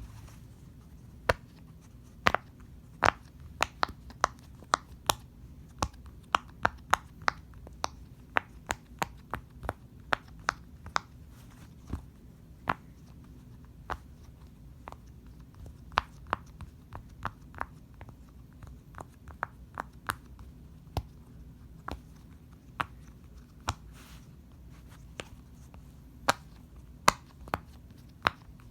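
Fidget toy being clicked: sharp, irregular clicks, several a second at times, with short pauses between runs.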